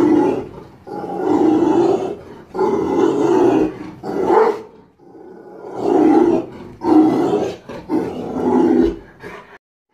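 Rottweiler barking at something outside: a string of loud, deep barks, about one a second, as it guards the house.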